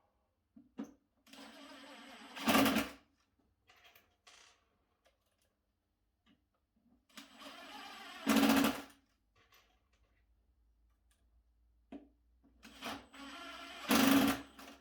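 A small electric power tool run three times in short bursts, each a steady hum that surges louder for a moment just before it stops.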